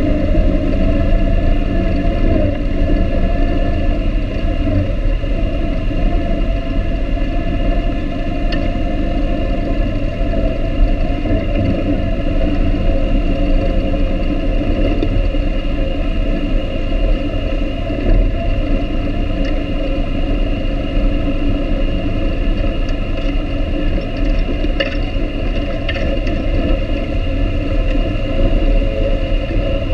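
ATV engine running steadily while riding a rough dirt trail, a continuous drone with rumble from the ride and a few faint ticks.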